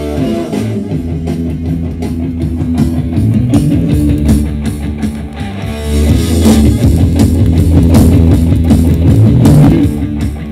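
Rock record with electric guitar and drums playing on a turntable through a Harbinger powered monitor speaker, loud and with plenty of bass.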